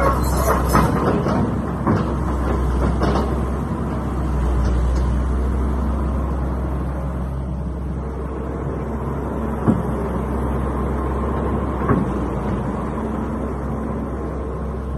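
Caterpillar 320 excavator's diesel engine running steadily with a deep low drone, with a few sharp knocks in the first three seconds and two more later.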